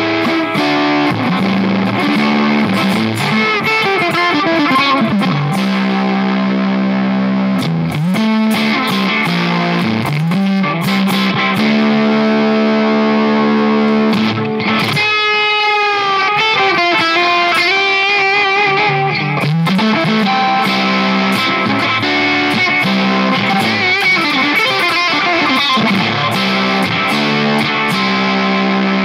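Fernandes FR-85S electric guitar being played: held chords and single-note lines, with a long dip and rise in pitch about halfway through.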